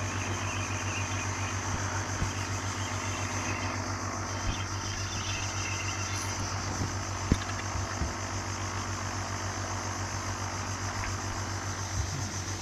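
An engine idling steadily with an even low throb, with a few faint knocks now and then.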